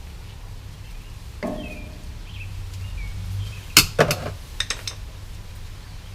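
Clicks and clacks of plastic and metal parts as the broken recoil starter of a chipper shredder is taken apart: a short creak early, one sharp loud click about halfway through, then a few lighter clicks. A steady low hum runs underneath.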